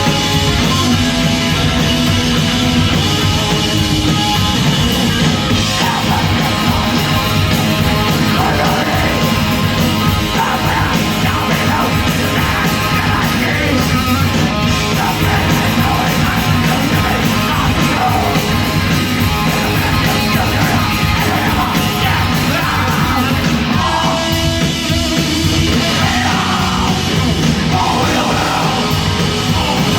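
Heavy metal band playing live and loud, with distorted guitars and drums, and yelled vocals over the band from about a quarter of the way in.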